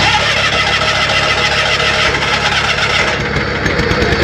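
Small John Deere lawn tractor's engine running loudly and steadily.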